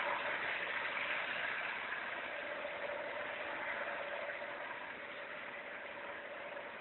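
Freight train of car-carrier wagons rolling past at a distance: a steady rush of wheels on rail with a faint steady whine, slowly getting quieter.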